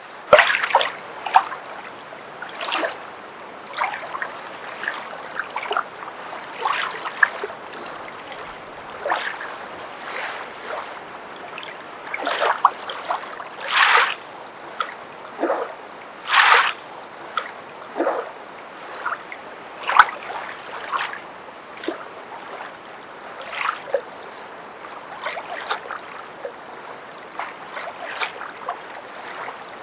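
Footsteps wading through water: irregular splashes and sloshes, one or two a second, with a few louder splashes around the middle.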